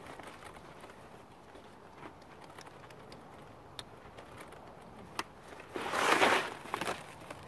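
Handling of a folding boat's white plastic panels: light clicks and rustles, then a louder scraping rustle lasting about a second around six seconds in.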